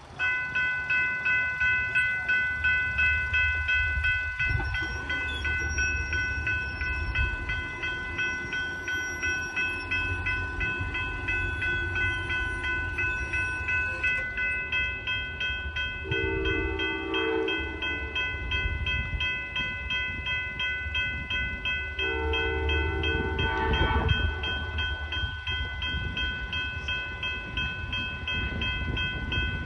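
Amtrak passenger train approaching: a bell rings steadily in an even pulse over the train's low rumble. The locomotive horn sounds two long blasts, about 16 and 22 seconds in, and a third begins at the very end.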